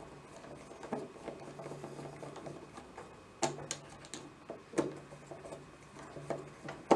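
Small screwdriver working the bolts of a hand mixer's motor and gearbox assembly: scattered clicks and light knocks of the tool against metal and plastic parts, with the sharpest knock near the end.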